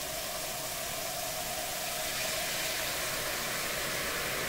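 Liquid nitrogen boiling off in copper LN2 pots as it is poured in: a steady hiss with a faint tone that fades about halfway through. The sound comes as the Der8auer Beast pot nears full pot, its copper cooling toward the nitrogen's boiling point.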